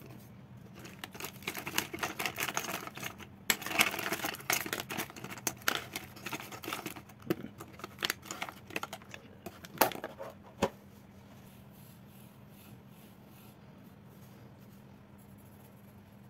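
Pens, pencils, a plastic sharpener and an eraser clattering against each other and being set down on a hardboard desk as they are taken out of a wooden pencil box: a quick, irregular run of small clicks and knocks. The clatter stops about eleven seconds in.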